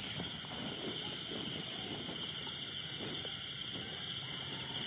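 Night insect chorus: a steady, high-pitched, unbroken trilling, with faint rustling of steps through undergrowth.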